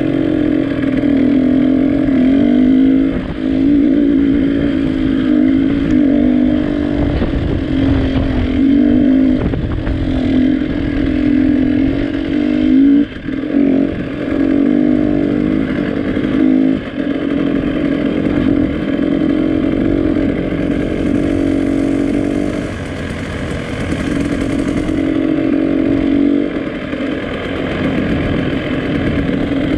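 Motorcycle engine running steadily under way, its note wavering slightly, with a low rush of wind noise underneath. The engine sound dips briefly twice around the middle, then runs quieter for a few seconds.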